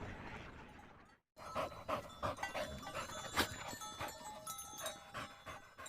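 A dog panting in quick, short, irregular breaths, starting just over a second in after a brief silence.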